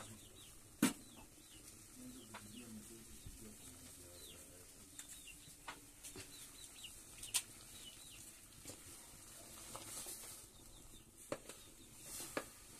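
Faint chirping and clucking of chickens, with a few short sharp knocks about a second in and again about seven seconds in.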